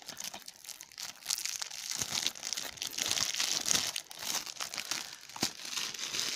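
Plastic shrink-wrap being torn and peeled off a DVD case by hand, crinkling and crackling, with a sharper snap about five and a half seconds in.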